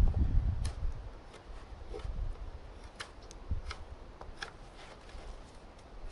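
Knife blade shaving and scraping along the wood of a rabbit stick, rounding its edge: a few short, light scraping strokes at uneven intervals. A low rumble dies away in the first second.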